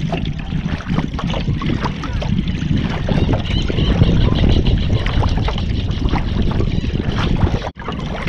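Water splashing and trickling against a moving sea kayak's hull, over a steady low wind rumble on the microphone. It cuts off sharply near the end.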